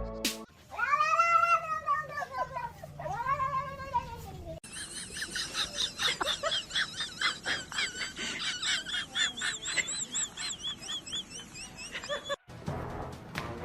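Domestic cat giving two long, drawn-out yowls that rise and then fall in pitch. After a cut, many quick, short, high-pitched mews or chirps follow one after another for several seconds.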